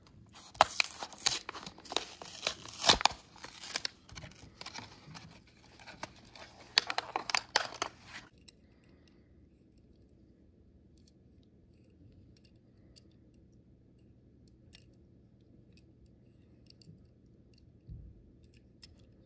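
Hot Wheels blister pack being torn open: tearing and crinkling of the cardboard card and plastic blister, with sharp snaps, stopping after about eight seconds. Then it goes quiet apart from faint light clicks.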